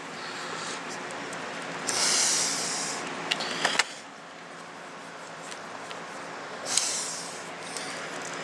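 Light clicks of laptop parts being handled and fitted, with a few short, soft hisses, the longest about two seconds in.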